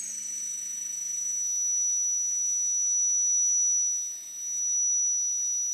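DeWalt 18V cordless drill running under load, drilling into aluminium plate, with a steady high-pitched whine that eases briefly about four seconds in.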